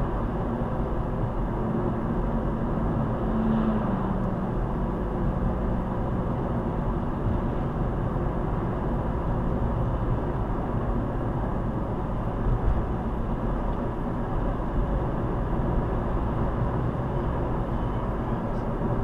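Steady road and engine noise of a car driving along a suburban street, heard from inside the cabin through a windscreen-mounted dashcam.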